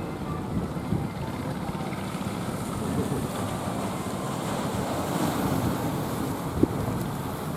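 Large ocean waves rushing and breaking, with wind buffeting the microphone; one brief thump late on.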